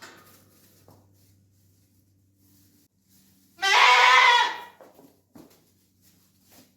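A goat bleating once, loudly, for about a second in the middle, with a few faint knocks before and after.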